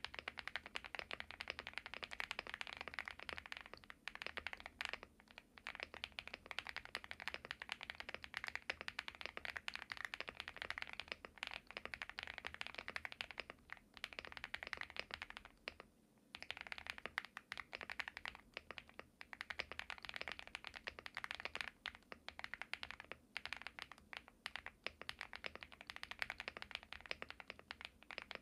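Fast, continuous typing on a Leogbog Hi75C mechanical keyboard with hand-lubed Akko Creamy Yellow Pro V5 linear switches: a dense stream of keystroke clacks, with short pauses about 4 s and 16 s in.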